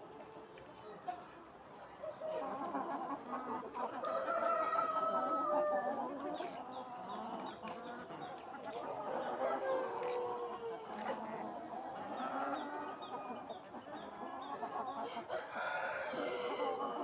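A large flock of chickens calling and clucking all at once, many overlapping voices, growing louder after about two seconds.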